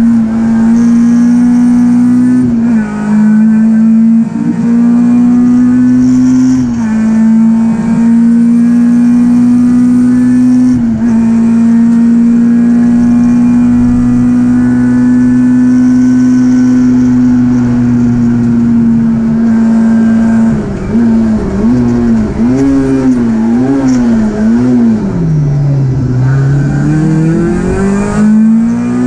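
Peugeot 306 Group A race car's engine heard from inside the cabin, held at high revs at full throttle with short dips in pitch about 2.5, 7 and 11 seconds in as gears change. Later the revs rise and fall repeatedly through a run of bends, drop low a couple of seconds before the end, then climb hard again.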